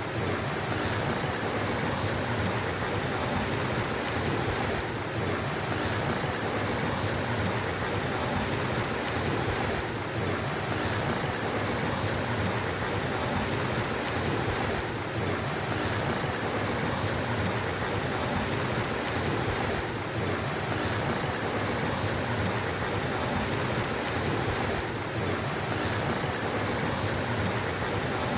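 Flowing water rushing steadily, an even, unbroken wash of sound.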